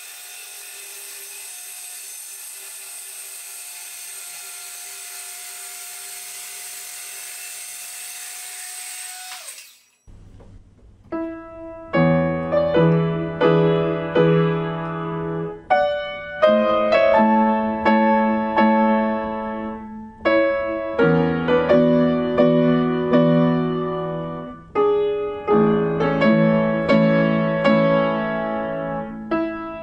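A Makita HS301D CXT cordless circular saw runs steadily while cross-cutting oak, then winds down about ten seconds in. Louder piano music follows.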